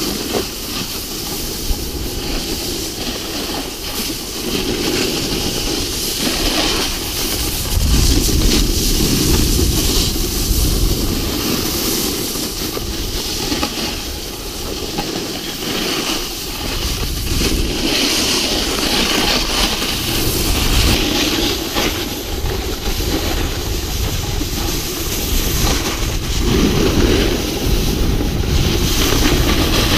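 Rushing wind on a moving GoPro's microphone together with the scrape of edges sliding over packed snow: a steady, loud rumble and hiss that swells and eases in waves.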